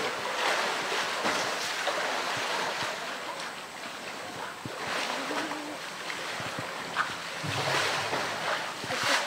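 Polar bear splashing and churning pool water as it wrestles a floating blue plastic tank, with louder splashes about half a second in, around five seconds in and near the end.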